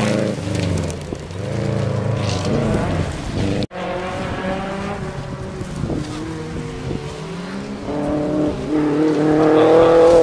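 Rally car engines at full throttle on a gravel stage: a Subaru Impreza rally car revs hard, its pitch rising and falling through gear changes as it slides past and pulls away. After a brief dropout about a third of the way in, the next rally car's engine is heard approaching, louder and higher-pitched near the end.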